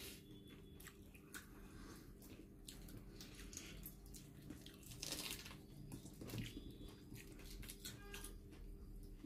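A person eating prawn curry and rice by hand: wet chewing and mouth smacks with many small clicks, and the squish of fingers mixing rice in curry, over a faint steady hum.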